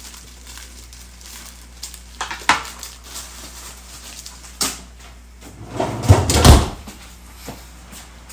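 A few light clicks and knocks of someone moving about a kitchen, then a louder heavy knocking rumble lasting about a second, near six seconds in.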